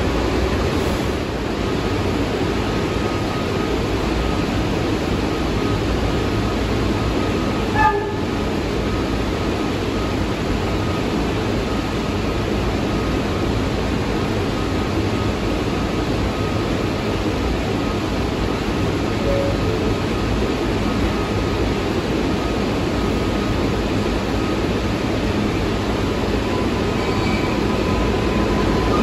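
New York subway cars standing at an underground platform, a steady rumble and hum from the idling trains. There is a short clank about eight seconds in. Near the end an R142A train begins to pull out.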